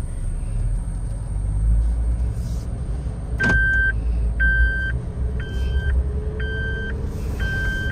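Low rumble of a Maruti Suzuki Jimny's 1.5-litre four-cylinder petrol engine and tyres as it pulls away, heard inside the cabin. After a click about three and a half seconds in, the car's electronic warning chime starts beeping about once a second.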